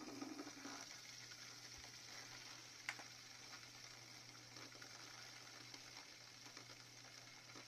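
LED fidget spinner whirring steadily on its centre ball bearing as it spins freely after a finger flick, with a single click about three seconds in.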